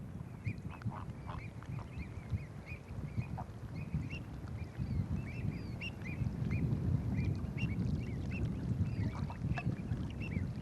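A flock of waterbirds calling, many short calls overlapping, over a steady low rumble.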